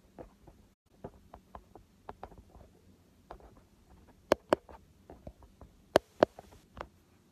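Handling noise from a smartphone recording selfie video: fingers tapping and knocking on the phone close to its microphone, a string of light irregular clicks with two pairs of sharper, louder taps past the middle.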